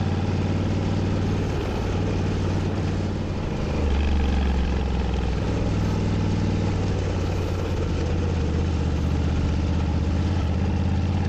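Honda Africa Twin's 1084 cc parallel-twin engine running steadily at low road speed on dirt, its note shifting in pitch a few times as the revs change.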